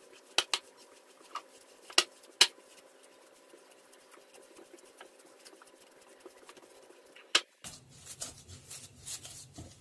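A gloved hand kneads a sticky mix of egg white, desiccated coconut and powdered sugar in a glass bowl: soft rubbing and squelching, with a few sharp taps against the glass, over a faint steady hum. The taps come about half a second in, twice around two seconds, and again after seven seconds, followed by a run of smaller ticks near the end.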